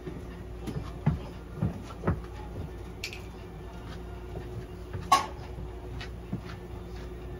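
Scattered small clicks and knocks of hands and gear handling a restrained cat on an exam table during a blood draw, over a steady faint electrical hum. One sharper, louder short sound about five seconds in.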